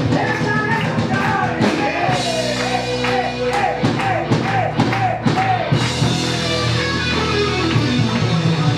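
Live hard rock band playing loud, with electric guitars, bass and drum kit. A high melody line with repeated bending notes runs over steady drum and cymbal hits for the first six seconds or so.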